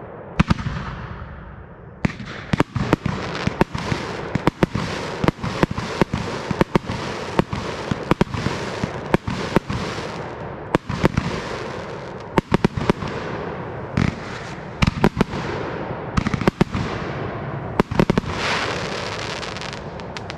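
Aerial fireworks firing and bursting in quick succession: many sharp bangs, several a second, over continuous hissing and crackling, with the crackling swelling near the end.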